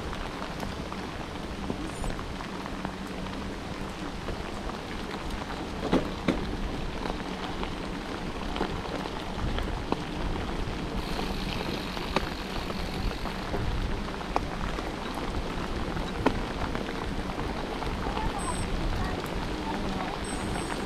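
Mountain bike rolling along a wet road: a steady hiss of tyres on the wet surface with wind on the microphone, broken by a few sharp knocks from bumps.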